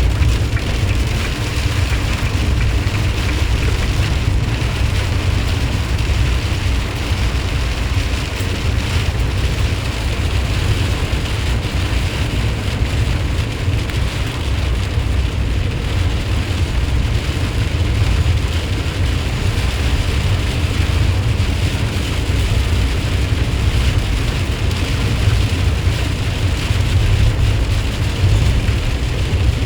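A 2020 RAM Promaster van driving in heavy rain: a steady low road and engine rumble under the hiss of rain and wet tyres.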